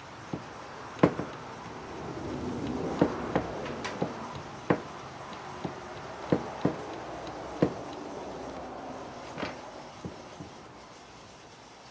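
A Mixing Mate stirring lid's paddle being worked by its handle in a quart paint can: irregular plastic clicks and knocks over a churning, scraping noise that swells in the middle and fades near the end.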